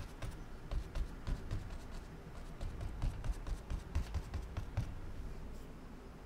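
Oil-paint brush tapping and dabbing against a stretched canvas on an easel. The soft, irregular taps come several a second, with low thumps from the canvas, and thin out about five seconds in.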